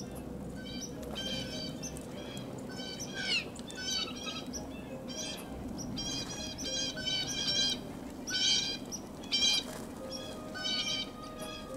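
Blue jay calling: short, harsh notes repeated in quick clusters of two to four, coming thicker and louder in the second half.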